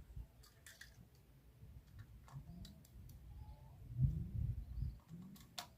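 Faint scattered small clicks and taps, with a low murmuring voice about four seconds in.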